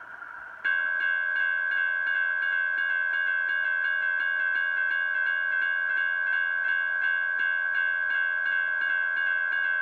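Railroad crossing bell ringing in a fast, even rhythm. It starts abruptly about half a second in and holds at a steady level.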